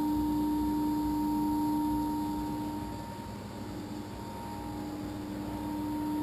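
Low-head water turbine and generator running: a steady hum with a higher whine over a light hiss. The hum drops away about halfway and comes back near the end.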